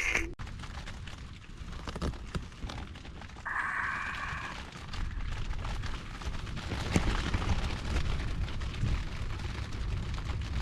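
Strong wind buffeting a hard-shell rooftop tent and the microphone as a steady rumble, with rain pattering on the tent as many small sharp ticks.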